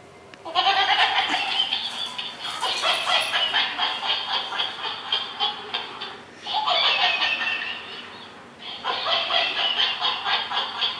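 Laughing monkey toy playing its recorded, rapidly pulsing laughter in three stretches, with two short breaks.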